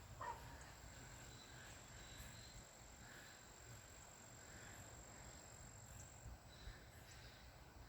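Near silence: faint outdoor ambience with a thin, steady, high-pitched insect trill that stops about six seconds in, and a few faint, soft chirps.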